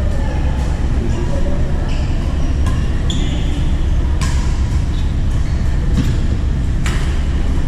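Badminton rally: sharp racket-on-shuttlecock hits, irregularly about a second apart, over a steady low rumble in the hall.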